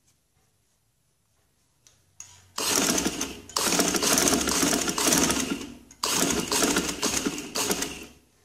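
Household sewing machine stitching piping onto a neckline in two runs. After a couple of light clicks, it starts about two and a half seconds in, stops for a moment about six seconds in, then runs again until just before the end.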